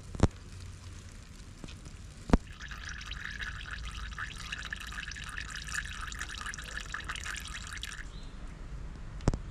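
Engine oil pouring in a stream into a container for about five and a half seconds: it starts a couple of seconds in and stops abruptly near the end. Two sharp clicks come before it and one after it.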